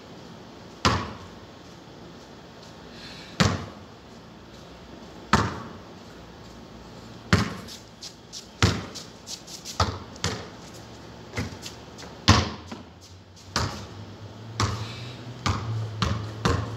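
Basketball bouncing on a concrete court: single sharp bounces a couple of seconds apart, then quicker, uneven bouncing from about halfway through.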